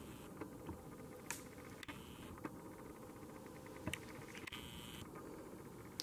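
Quiet room tone with a few faint, scattered clicks and light taps, and a brief run of tiny rapid ticks a little after two seconds.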